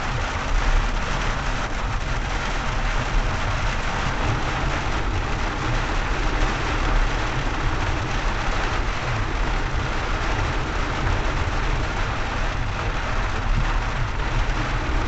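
Steady cabin noise of a car driving on a highway in rain: a low rumble of engine and tyres under an even hiss of rain.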